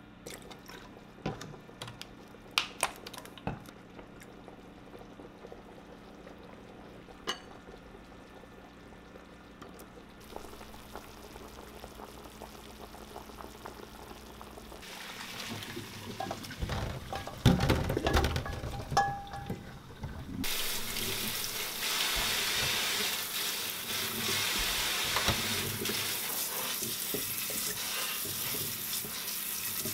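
A wooden spoon clicking against a ceramic bowl as a sauce is stirred. Around the middle come bubbling and knocks from a pot of boiling pork back ribs. From about two-thirds of the way in, a tap runs steadily and loudly into a stainless steel sink over the boiled ribs in a mesh strainer, rinsing them in cold water.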